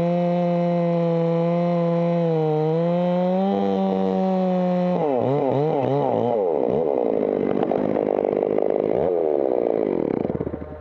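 Stihl chainsaw at full throttle cutting through a eucalyptus (blue gum) trunk, its pitch sagging slightly now and then under load. About halfway through, the revs start rising and falling rapidly. Near the end the saw drops back to idle.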